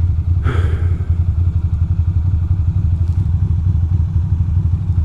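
Ducati Monster 620's air-cooled L-twin engine running steadily at low revs with a low throb. A short burst of noise about half a second in.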